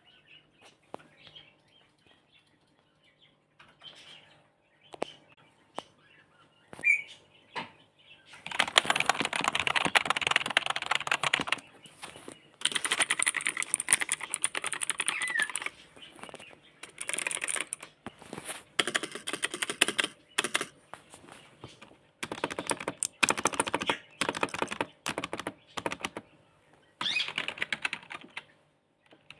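Computer keyboard being typed on: a few scattered single key presses at first, then fast typing in bursts of one to three seconds with short pauses between.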